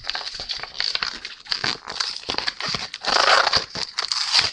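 Plastic foil wrapper of a trading-card booster pack crinkling and tearing as it is pulled open, with a louder stretch of rustling about three seconds in.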